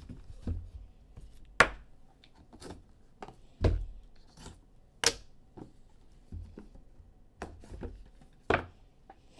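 Trading-card boxes and packs being handled on a table: irregular light clicks, taps and rubbing, with four sharper knocks, one of them a dull thump near the middle.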